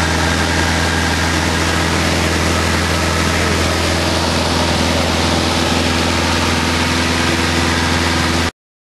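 Van's RV light aircraft's piston engine and propeller droning steadily in flight, heard inside the closed cockpit. The sound cuts off abruptly near the end.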